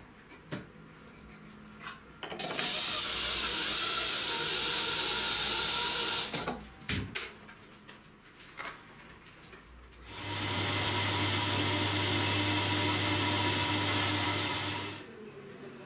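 A table saw blade shaving a wooden blank round while a cordless drill spins it in a homemade lathe jig: a steady whir of motor and blade with the hiss of cutting, about five seconds long near the end. Earlier comes a similar stretch of steady power-tool noise of about four seconds, with a few clicks and knocks of the jig being handled and bolted in between.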